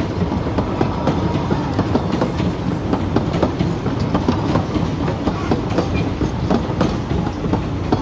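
Wooden passenger coaches of a narrow-gauge train rolling past close by: steel wheels rumbling steadily on the rails, with frequent irregular clicks and clacks over the track joints.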